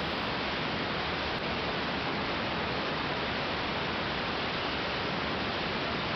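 Steady, even rush of in-flight noise in a 1946 Aeronca 7AC Champ: engine and airflow blend into one constant hiss, with no distinct engine beat standing out.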